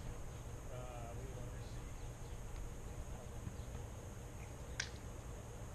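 A volleyball being struck once, a single sharp slap near the end, over a faint steady low rumble of outdoor background. A short wavering call sounds about a second in.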